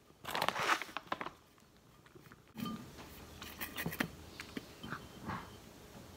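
A cat eating soft, moist cat food from a stainless steel bowl: small, irregular chewing and lapping clicks with light contacts on the bowl, fading out about five seconds in. In the first second there is a louder burst of rustling clicks.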